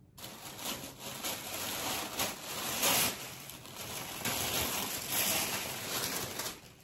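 Tissue paper rustling and crinkling as it is pulled apart and lifted out of a cardboard shipping box, in a steady run of crackles with louder bursts about three and five seconds in.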